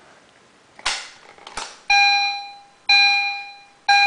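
A Fire-Lite BG-10 pull station is pulled with a clack and a click, then an EST Genesis fire-alarm chime sounds three chime strikes a second apart, each ringing out and fading: the code-3 temporal evacuation pattern.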